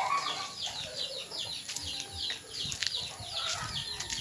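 Birds chirping: a steady run of short, high, falling chirps, about four a second.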